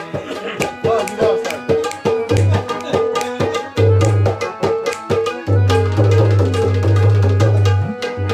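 Instrumental music led by a fast hand-drum rhythm, with deep bass drum strokes that swell and hang between quick sharp strikes. No singing.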